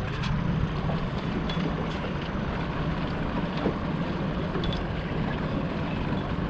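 Boat's outboard motor running steadily with a low hum, with a few faint clicks over it.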